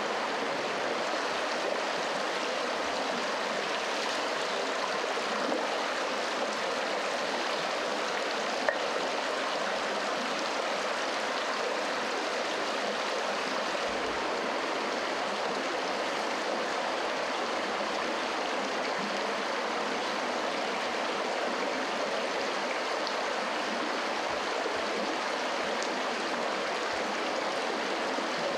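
Steady rushing of running water, like a stream, with one sharp click a little under nine seconds in.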